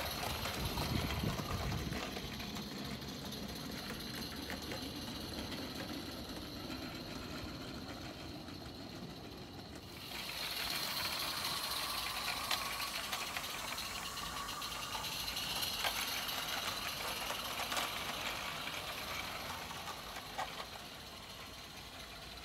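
Garden-scale model trains running on outdoor track, wheels and running gear rattling over the rails, with a low rumble as a train passes close near the start. The sound changes suddenly about ten seconds in, and a few sharp clicks come later.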